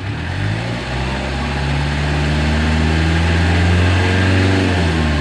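Mitsubishi L300's diesel engine being revved: the engine note climbs over the first two seconds, holds at a high speed, then drops back sharply near the end.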